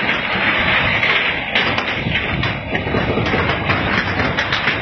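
Loud, continuous rumbling and crashing as the ground and buildings move in an earthquake, with many sharp knocks and bangs of corrugated metal roofing.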